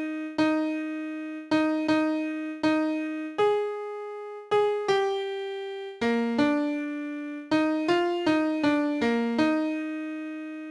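Alto part of a choral song played as a single melody line on a piano-like keyboard tone, one note at a time with a mix of short and longer notes. The line ends on a long held note about three quarters of the way through.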